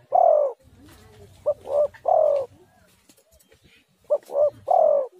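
Spotted dove (tekukur) cooing its three-note call, two short notes then a longer falling note, repeated about every two and a half seconds: the tail of one call at the start, then two full calls about a second and a half and four seconds in.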